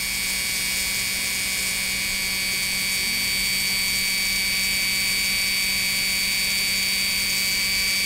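Restored PFAFF 332 sewing machine electric motor running flat out, its electronic foot controller held fully down: a steady, smooth whine with a high tone over a low hum, no fluctuation in speed.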